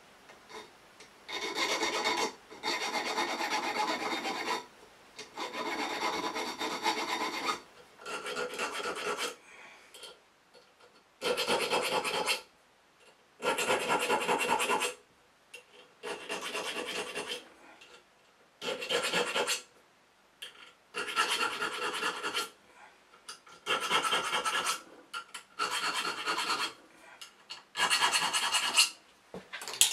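A needle file rasping back and forth across the steel spine of a knife blade, cutting decorative notches. It comes in about a dozen bouts of a second or two each, with short pauses between.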